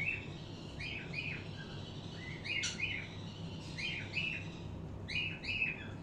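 Small pet parrots chirping, short repeated chirps in ones and pairs about once a second.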